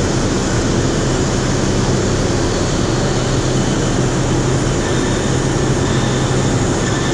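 Steady industrial machinery noise: a constant low hum under an even hiss, without change.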